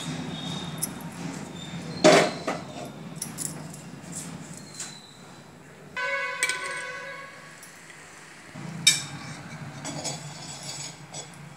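Metal wok knocking and clanking on the gas stove: a sharp knock about two seconds in, a ringing clang about six seconds in and another knock near nine seconds, over the steady low rush of the lit gas burner.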